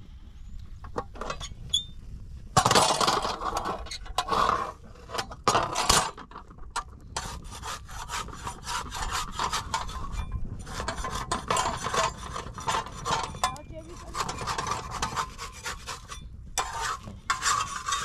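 Repeated rasping scrapes of a thin wooden stick working thin flatbread on a domed iron griddle (saj) over a wood fire, coming in bursts of quick strokes.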